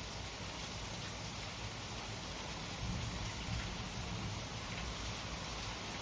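Steady rainfall, an even hiss with occasional distinct drops pattering on surfaces.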